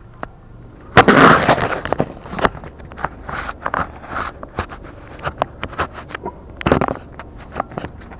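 Irregular sharp clicks, knocks and rustling, loudest about a second in and again near the end, like a recording device or something close to the microphone being handled.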